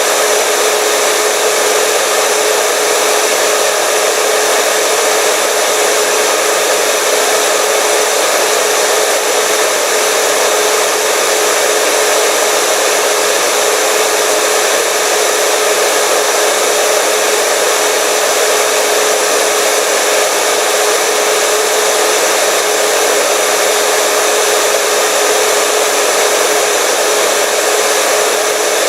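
Electric hair dryer running steadily, a constant blowing whoosh with a steady hum in it.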